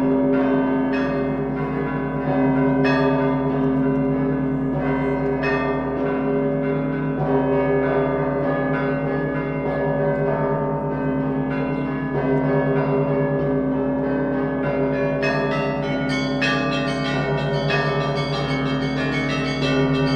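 Russian Orthodox festal bell ringing (zvon) on a set of church bells of many sizes: the deep bells hum on steadily beneath rapid, repeated strikes of the smaller, higher bells, which grow busier about three-quarters of the way through.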